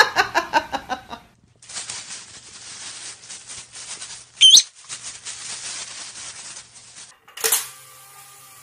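Crackly rustling, like a plastic bag being moved about, runs for about five seconds, with one short high squeak in the middle. In the first second, a burst of laughter fades out, and near the end there is a sharp knock.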